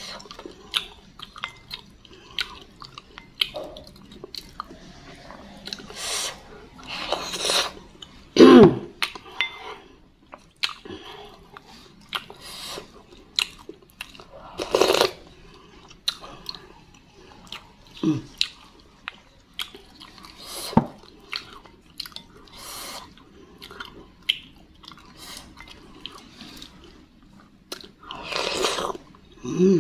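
Close-up eating sounds of spicy meatball soup: wet chewing and biting of meatballs and beef with many small mouth clicks. A few louder slurps of broth from a wooden spoon are heard, one near the end.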